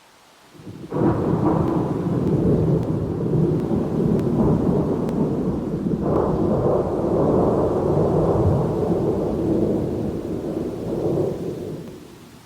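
Thunder: a sudden clap about a second in rolls into a long low rumble, swells again about halfway through, and dies away near the end, over a faint steady hiss.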